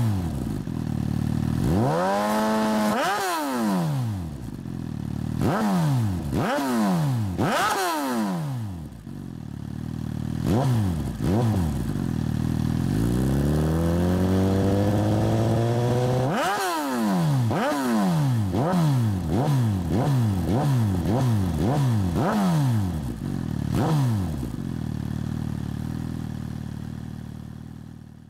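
Suzuki GSX-R1000's inline-four engine free-revving through a Racefit exhaust with its baffle fitted: a series of quick throttle blips, each pitch rising and dropping sharply, with one slower, longer climb about halfway through. Near the end it settles back to idle and fades out.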